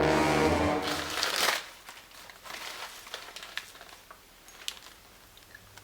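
Packaging crinkling and rustling with small clicks as a gift is unwrapped by hand. A short pitched musical sound sits over the first second and a half.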